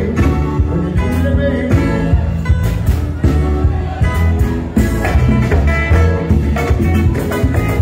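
Live band playing loud, upbeat music, with a man singing into a microphone over drums and a heavy bass line.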